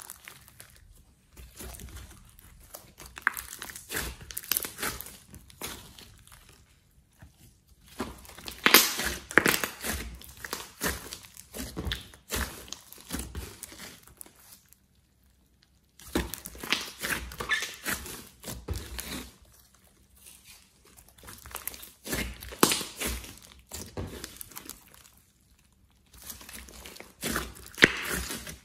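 Hands stretching, folding and squeezing a large mass of slime mixed with clay, making sticky crackling and popping. It comes in several bursts with short pauses, one almost silent about halfway.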